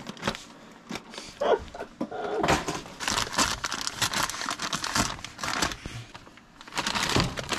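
Plastic tortilla-chip bag crinkling and rustling as it is handled over a paper plate, busiest in the middle few seconds.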